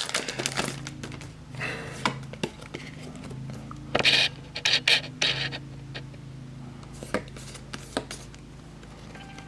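A torn foil booster-pack wrapper crinkling as the trading cards are pulled out, then the cards being handled and slid against one another, with scattered soft rustles and clicks over a faint steady low hum.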